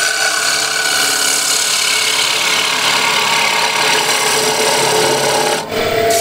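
A turning tool cutting a cherry bowl spinning on a lathe: a steady, rough hiss of the edge shearing wood, which stops suddenly about five and a half seconds in.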